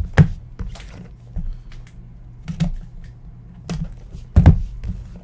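2015-16 National Treasures Basketball boxes being handled and set down on a desk: a string of separate sharp knocks, loudest just after the start and near the end, over a low steady hum.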